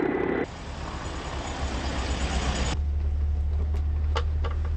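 Helicopter rotor noise that cuts off about half a second in, then a steady hiss, then from near three seconds a low, steady engine hum inside a vehicle with a few light clicks.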